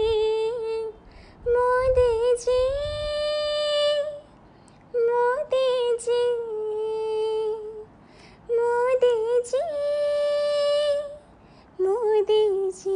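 A woman singing a Hindi song solo and unaccompanied, in several phrases of long held notes with short silent breaths between them.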